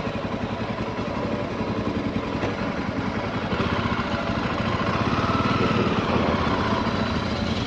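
Motorcycle engine running while riding, its exhaust pulsing steadily and growing somewhat louder in the second half.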